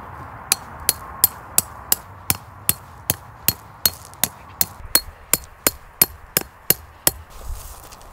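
A hammer striking steadily, about three sharp, ringing blows a second, some nineteen in all, stopping about seven seconds in.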